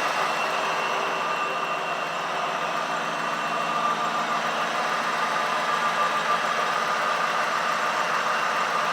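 1983 Cadillac Fleetwood's engine idling steadily, breathing through a newly fitted Spectrum 733 dual ram-air intake box.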